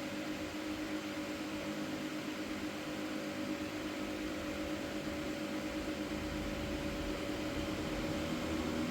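A steady mechanical hum with a few steady tones in it, with a low rumble that grows louder toward the end.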